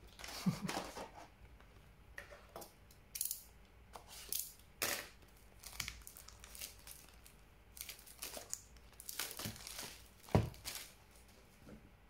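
Pokémon trading cards and booster-pack foil being handled: irregular crinkling and rustling with light taps, loudest about half a second in and again about ten seconds in.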